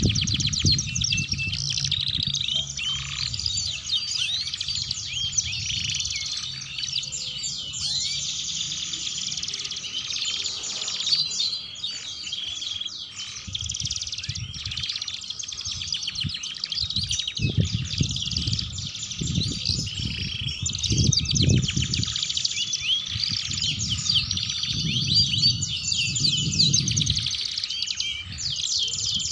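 Domestic canaries singing continuously: a long, unbroken song of rapid trills, rolls and chattering phrases. A low rumble comes and goes in the background.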